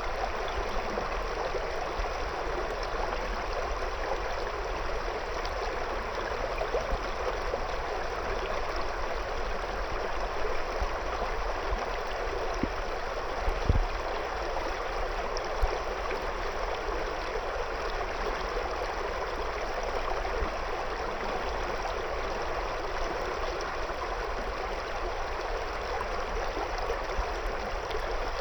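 River water flowing steadily over and around stones, an even rushing burble. About halfway through there is one brief low thump.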